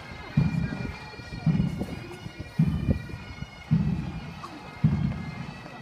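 Pipe band playing a march: bagpipes over a bass drum struck about once a second.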